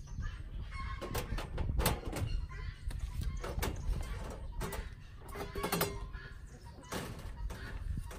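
Chickens clucking while a wire rabbit cage and a tin can rattle and clank as the can is taken out of the cage.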